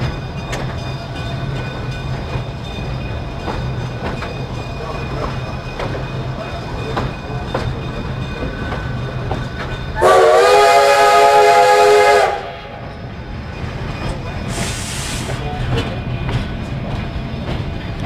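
Narrow-gauge steam train coach rolling along the track with a steady low rumble and scattered clicks. About ten seconds in, the steam locomotive's whistle sounds one loud blast of about two seconds, and a short hiss follows soon after.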